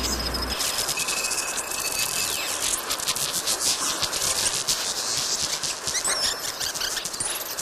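Dense, rapid high-pitched clicking and chirring, insect-like, with a short steady whistle about a second in and brief rising whistles near the end.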